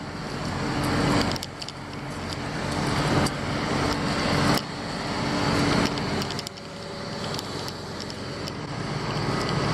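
Vehicle engines and road traffic running, a steady engine hum under noise that swells and drops back several times.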